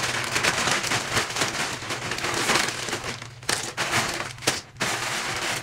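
A plastic poly mailer bag crinkling and rustling as it is pulled and torn open by hand, with a couple of short breaks in the last two seconds.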